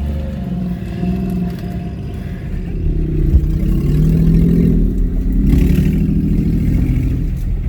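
Off-road rock crawler's engine revving unevenly under load, climbing harder about three seconds in, with a single sharp knock just after.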